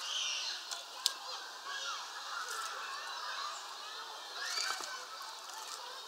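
Wild birds chirping and calling, many short calls overlapping throughout, with a sharp click about a second in.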